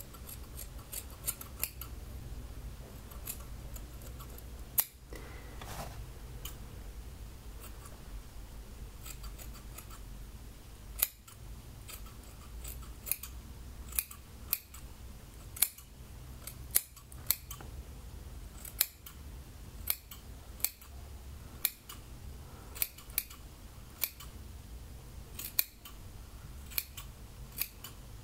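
Scissors snipping through wet hair: sharp, crisp snips at an irregular pace of roughly one a second, some coming in quick pairs.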